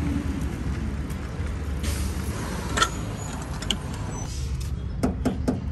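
Motor vehicle running, a steady low rumble, with a few sharp clicks and knocks, several of them near the end.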